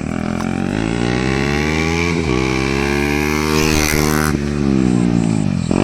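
KTM Duke 250's single-cylinder engine running loud with its silencer removed, accelerating through the gears: the pitch climbs, then drops back at each gear change, three times.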